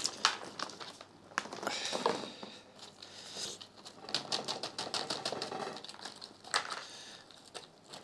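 Chunks of orchid bark clattering into a clear plastic pot, first poured from a crinkling plastic bag and then pushed in around the orchid's roots by hand, as an irregular run of small clicks and rustles.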